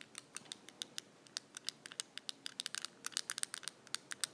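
Fidget cube buttons being pressed over and over: a quick, irregular run of small plastic clicks, like bubble wrap popping.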